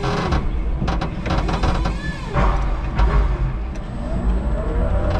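A 5-ton electric forklift on the move with a pallet on its forks: a steady low rumble with the electric drive's whine slowly rising and falling in pitch. A few sharp knocks and rattles come from the forks and load, about half a second in, around a second in, and again about three seconds in.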